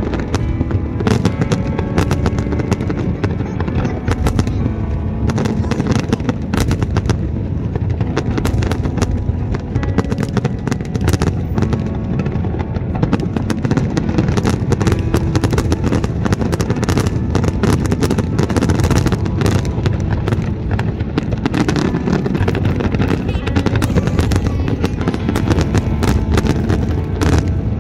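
A fireworks display: many bangs of bursting shells in rapid succession, with music playing underneath.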